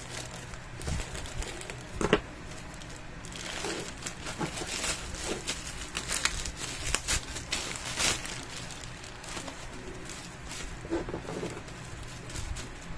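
Black plastic courier bag crinkling and rustling as it is cut open with scissors and pulled apart by hand, with irregular sharp clicks and crackles, the loudest about two seconds in.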